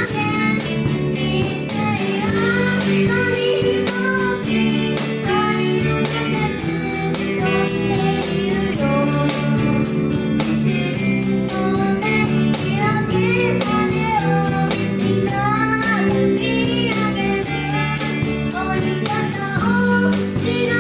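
A band playing a J-pop song: a child sings the lead vocal over guitar and a drum kit keeping a steady beat.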